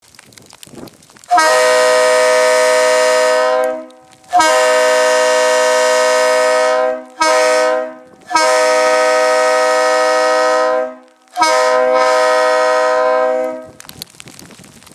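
Unrestored Leslie RS-L-3-LR three-chime locomotive air horn blown on compressed air through a ball valve: five loud blasts, long, long, short, long, long. Each blast is one steady chord of several notes that starts and cuts off sharply.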